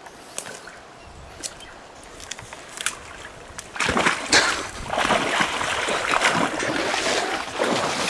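Boots sloshing and splashing through a shallow creek and its mud. The first few seconds are quieter, with a few sharp clicks, and loud irregular splashing starts about four seconds in.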